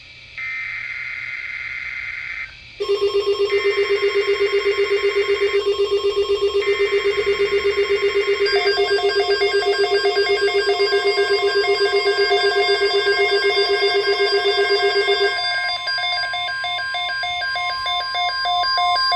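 NOAA Weather Radio Emergency Alert System activation: three short bursts of screeching SAME data tones, then the steady warning alarm tone. From about three seconds in, a loud electronic alarm pulsing about five times a second sounds over it and stops a few seconds before the end.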